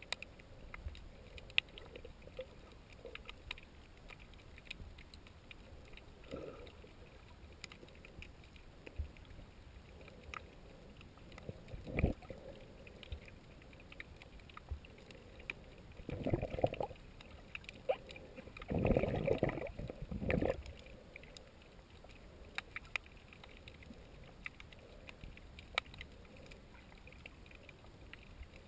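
Underwater sound picked up by a submerged camera over a reef: a faint steady hiss with scattered sharp clicks, and a few short swooshes of stirred water, the longest two about two-thirds of the way through.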